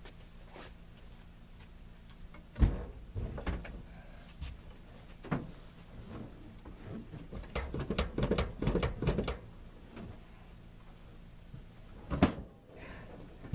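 Scattered knocks and clatters from hands-on work on the truck during brake bleeding. A sharp bang comes about two and a half seconds in, a quick run of clicks and knocks around eight to nine seconds, and another bang near the end.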